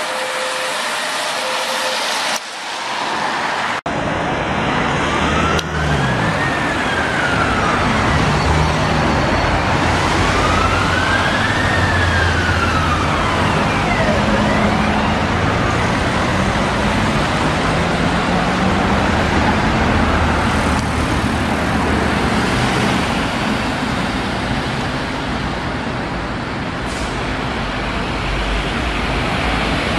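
City-centre traffic with buses and cars running, and a fire engine's wail siren rising and falling slowly in the distance for a few cycles before fading under the traffic. In the first couple of seconds, a two-tone hi-lo siren trails off over tyre noise on a wet road.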